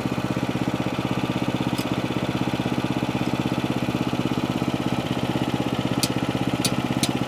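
Sawmill engine idling steadily with an even, rapid pulsing beat. A few sharp clicks sound near the end.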